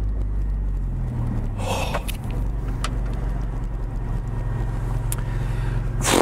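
Maserati MC20 Cielo's twin-turbo V6 running at low, steady revs, a low even drone with no revving. A short breathy sound comes about one and a half seconds in, and another just at the end.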